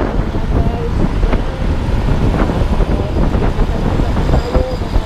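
Motorcycle on the move in road traffic, its engine and road noise under a steady rumble of wind on the microphone.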